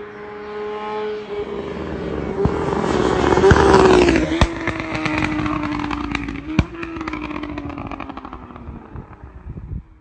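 Honda CBR1000RR SC77 inline-four superbike with an Akrapovič exhaust passing by at speed on a steady high-revving note. The note swells, drops in pitch as the bike goes past about four seconds in, then fades away. Sharp exhaust pops and crackles sound through the pass, with a burst of smaller ones as it recedes.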